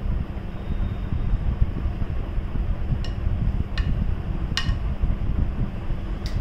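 Steady low rumble of moving air buffeting the microphone, with four light clinks of a metal spoon against a glass baking dish in the second half.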